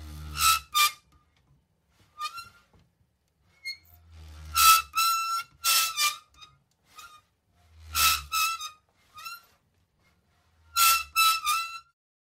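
Metal door worked four times. Each time a low rumble builds, then two or three sharp metallic clanks with a squeaky, ringing tone.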